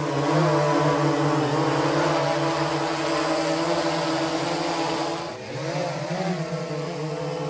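Quadcopter drone's motors and propellers whirring steadily with a slightly wavering pitch; a little over five seconds in the sound dips for a moment and comes back with the pitch bending up and down.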